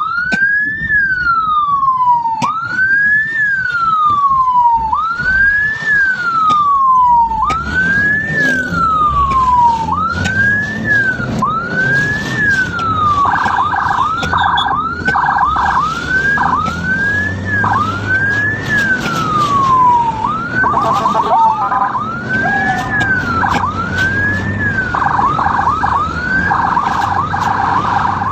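Ambulance's electronic siren wailing: each cycle rises quickly and falls slowly, repeating about every two and a half seconds. From about halfway through, bursts of rapid warble cut in between the sweeps. A low vehicle rumble runs underneath.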